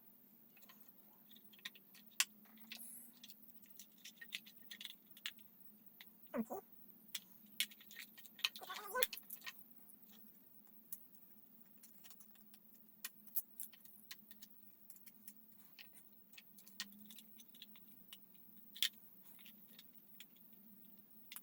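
Faint, irregular small clicks, ticks and light rattles of small metal parts and tools being handled during electrical wiring work, with a short rustle near the middle.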